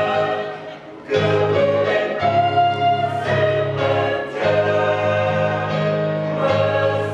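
Mixed school choir of female and male voices singing sustained chords in parts, with a low male line beneath. The sound falls away briefly under a second in, then the whole choir comes back in together.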